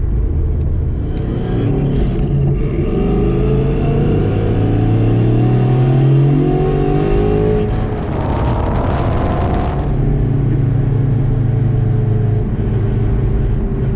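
Boss 302 Mustang's 5.0 L V8 heard from inside the cabin under acceleration, its note climbing in pitch for several seconds. About eight seconds in, a louder rushing noise lasts a couple of seconds. The engine then settles to a steady, lower note.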